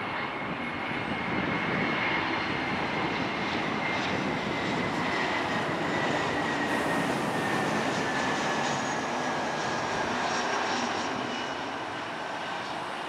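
Airbus A321 airliner's jet engines on final approach with landing gear down: a broad, steady rushing noise with a thin high whine that slowly falls in pitch, loudest in the middle and easing off near the end.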